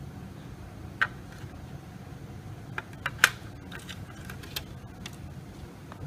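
Plastic casing of a Tenda wireless router being handled and turned over on a table: about six light clicks and knocks, the sharpest about three seconds in, over a low steady hum.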